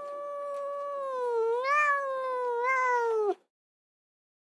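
A cat's long, drawn-out meow that wavers up and down in pitch, then cuts off suddenly about three and a half seconds in.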